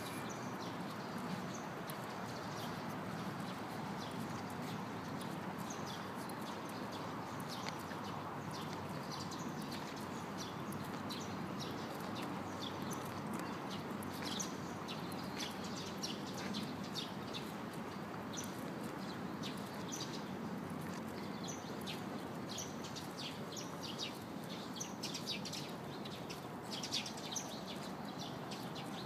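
Small birds chirping over and over above a steady low hum of distant traffic.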